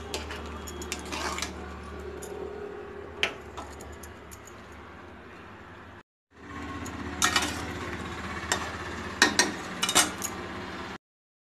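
A spatula stirring curry in a metal kadai, scraping and clinking against the pan in scattered knocks over a steady low hum. The sound breaks off briefly about six seconds in, then comes back with a quicker run of clinks before it cuts off near the end.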